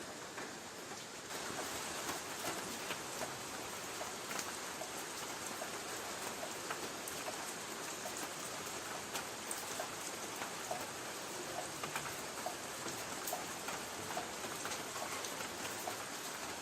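Light rain falling on a tin roof: a steady hiss with many separate drops ticking sharply on the metal. It gets a little louder about a second in.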